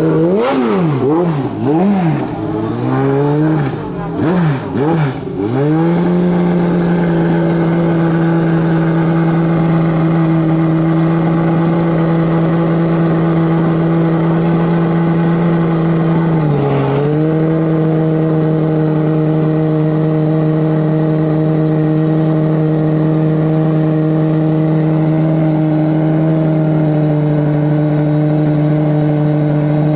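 Race car engine revved up and down quickly several times, then held at steady revs, with one brief dip in pitch a little past halfway.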